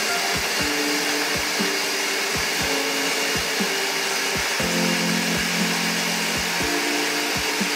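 Countertop blender running steadily, puréeing tomatillo salsa verde into a smooth sauce. Background music with a steady beat plays under it.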